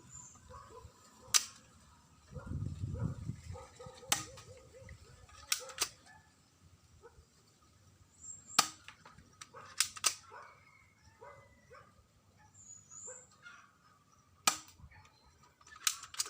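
Spring-powered airsoft Glock 17 replica pistol firing pellets one at a time: about ten sharp snaps at irregular intervals, some in quick pairs.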